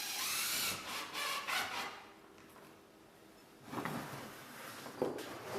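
Work noise from fixing a corrugated Onduline roofing sheet onto a roof ventilator unit: a brief noisy whirring burst at the start, then rubbing and a few knocks.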